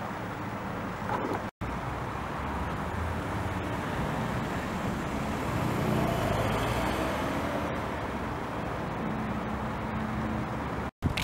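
Steady running of idling vehicle engines, most likely the diesel engines of the parked fire engines, with a faint low hum and a slight swell about six seconds in.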